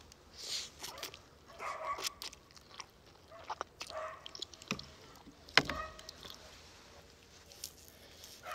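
Close-up eating sounds: a mouthful of instant noodles slurped and then chewed, with irregular wet smacks and a few sharp clicks, the loudest about five and a half seconds in.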